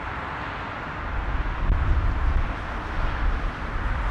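Distant De Havilland Canada Dash 8-400 turboprop climbing out after takeoff: a steady rush of engine and propeller noise. Wind buffets the microphone with a gusty low rumble that grows louder about a second in.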